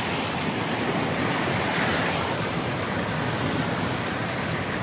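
Steady rushing of floodwater thrown up by a car's tyres as it drives through water lying across the road, heard from inside the car.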